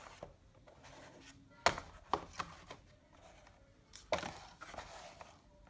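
Handling of the product packaging: a few light clicks and knocks, then a louder knock with some rustling near the end, as the box and its contents are opened and moved about.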